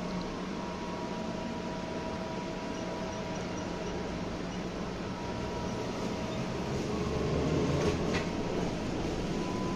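Interior of a BTZ-5201 trolleybus: a steady electrical hum with thin whining tones. From about seven seconds in, the running sound grows louder as the trolleybus moves off, with a single click about eight seconds in.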